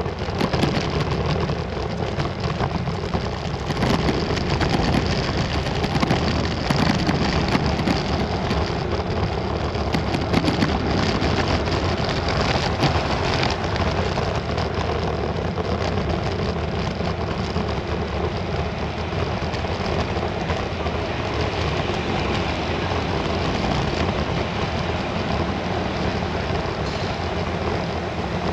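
Steady wind and road rumble from riding an electric scooter along a city street, with wind buffeting the microphone.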